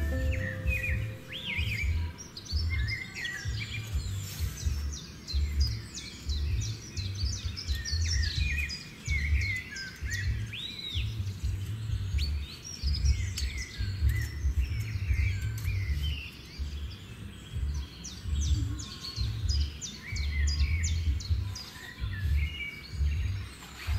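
Many small birds chirping and calling in quick, overlapping notes throughout, over a heavy, uneven low rumble that comes and goes every second or so.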